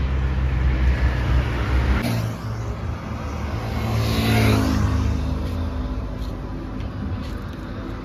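A road vehicle passing close by, loudest about four and a half seconds in, its engine note falling in pitch as it goes past, over a steady low road rumble.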